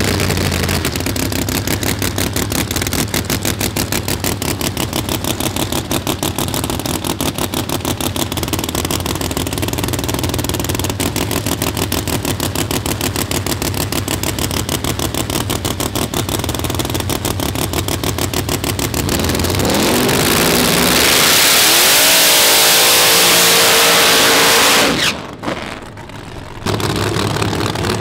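Supercharged drag race car idling with a fast, choppy lope. About 19 seconds in it revs and goes into a loud burnout, the engine pitch climbing over the noise of the spinning tyres. That sound cuts off suddenly, and the choppy idle returns near the end.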